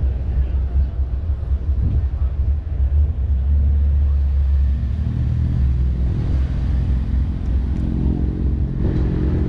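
Gusty low rumble of wind on the microphone, joined about halfway through by the steady hum of a car engine idling.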